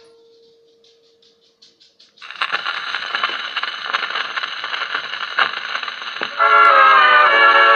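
Acoustic gramophone playing a 78 rpm shellac record. Faint ticking as the needle rides the lead-in groove gives way about two seconds in to loud crackling surface noise. About six seconds in, the recorded music starts over the crackle.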